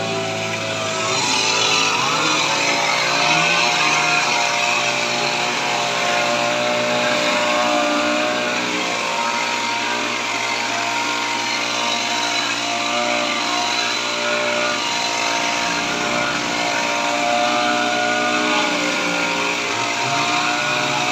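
Kamatsu HT230 two-stroke petrol hedge trimmer engine running steadily at high revs, with a slight shift in pitch about two seconds in.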